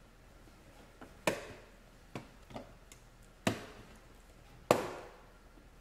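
Plastic lower dashboard trim panel being pried off, its quick-release clips snapping loose: three loud sharp snaps with a few lighter clicks between them.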